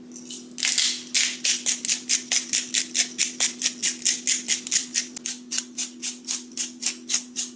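Black pepper being dispensed over raw salmon: a steady run of short gritty rasps, about four or five a second, starting about half a second in.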